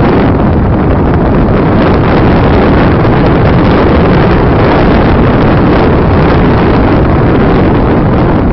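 Loud, steady wind rush buffeting the onboard phone microphone of a radio-controlled slope glider in flight.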